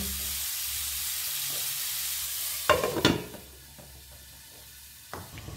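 Mushrooms sizzling in hot oil in a frying pan. A little under three seconds in, a glass lid clatters onto the pan, and the sizzle goes on much quieter and muffled under the lid. There is another click near the end.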